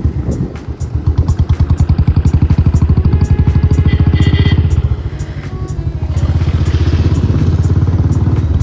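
Motorcycle engine running with a rapid, steady low throb, easing slightly about five seconds in. A brief high-pitched tone sounds about four seconds in.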